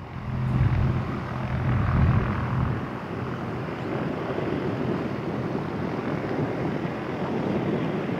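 A propeller aircraft engine running steadily with a low hum, loudest in the first couple of seconds, over a broad rushing noise.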